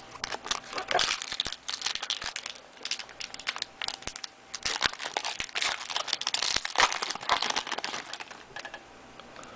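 Plastic wrapper of a Fleer Ultra basketball card pack crinkling as it is torn open and handled, in irregular crackles that thin out near the end.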